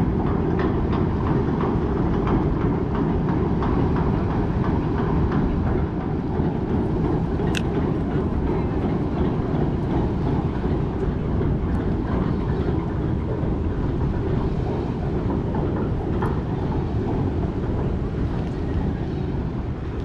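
Chain ferry running close by: a steady low rumble of its engines and hauling chains, with a few faint clicks.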